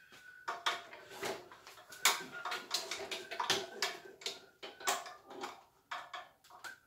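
Welding cable plugs and leads clicking and knocking as they are handled and pushed into the front sockets of a small inverter welder on a perforated sheet-metal trolley. The knocks come in an irregular run, several a second, with a faint steady tone under them.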